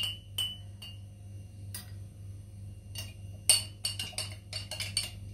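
A spoon clinking against a glass while cornflour is stirred into water, a few clinks ringing briefly. Scattered clinks, then a quick run of rapid clinks about three and a half seconds in.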